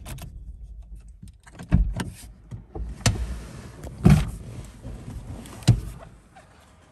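SEAT Ibiza switched off from idle, then a handful of sharp clicks and knocks in the cabin as the driver's door is unlatched and swung open.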